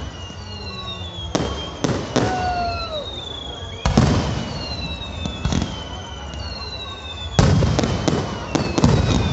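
Fireworks bursting overhead: a scattered series of sharp booms, the loudest about four seconds in and a quick cluster near the end, with high whistles falling in pitch over and over between them.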